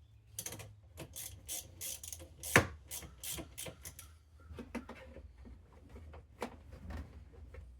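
Hand work on truck wiring and parts: a quick run of small clicks, taps and scrapes, with one sharp knock about two and a half seconds in, then a few scattered clicks over a low steady hum.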